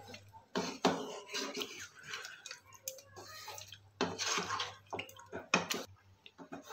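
Wooden spatula stirring yogurt-coated chicken pieces in a nonstick kadai: irregular wet squelching and scraping against the pan, with a few sharp knocks of the spatula on the pan.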